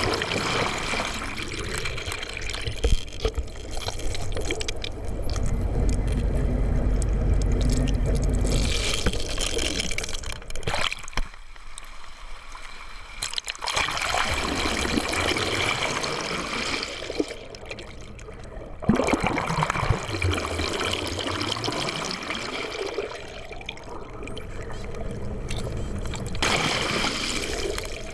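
Seawater rushing and gurgling around a camera being towed through the sea, swelling and easing unevenly, with a low rumble for a few seconds near the start.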